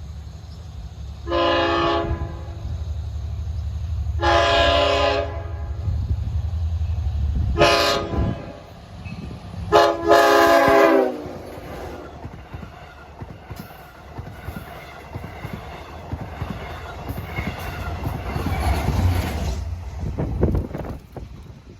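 Long Island Rail Road diesel locomotive's air horn sounding the grade-crossing signal: two long blasts, a short one and a final long one, over the engine's low rumble. The train then passes with the clatter of wheels over the rails.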